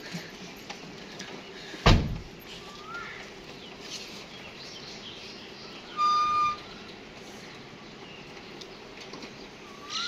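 A single loud thump about two seconds in, then a short steady beep about six seconds in, with a few faint bird chirps in the background.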